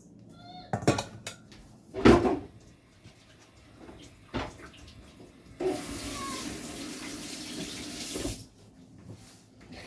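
A few knocks of items being handled, then a kitchen tap running for about three seconds before it is turned off.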